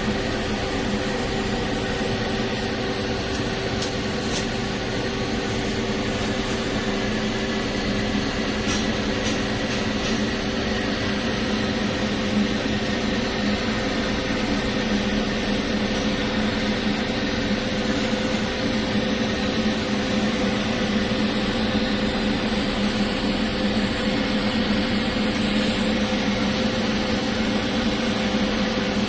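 Steady hum with several even tones over a constant hiss from TIG welding equipment running while carbon steel pipe is welded.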